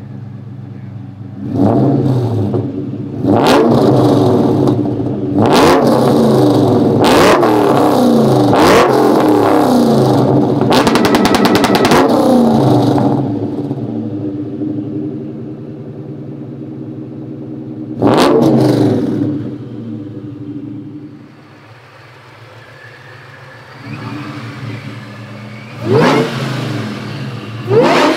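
2003 Mustang SVT Cobra's Whipple-supercharged 4.6-litre DOHC V8 idling and being free-revved through long-tube headers, an X-pipe and a Borla Stinger cat-back exhaust. Revs come in quick succession over the first dozen seconds, then the engine settles to idle between a few single sharp blips.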